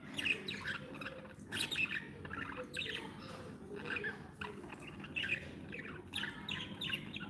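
Budgerigars chirping and chattering, many quick short chirps in a busy flurry, over a steady low background hum.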